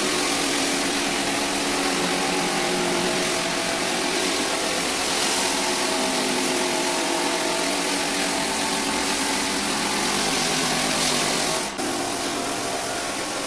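Rented drum floor sander running steadily, sanding a hardwood floor, with a steady hum and hiss. It breaks off briefly about twelve seconds in and carries on slightly quieter.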